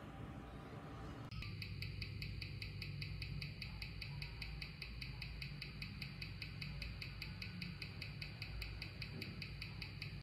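Vintage Seikomatic 8305B automatic watch ticking at 18,000 beats an hour, about five even ticks a second, picked up by a timegrapher's microphone and played through its speaker; the ticking starts about a second in. The movement is running well, timed at 0 s/d with 257° amplitude and 0.3 ms beat error.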